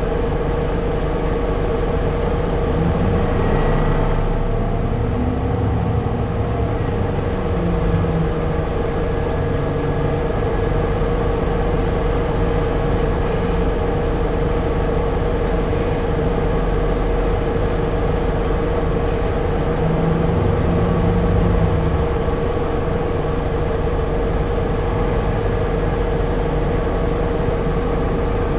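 Keio city bus heard from inside while under way: engine and drivetrain running with a steady whine, the engine note picking up a few times as the bus pulls.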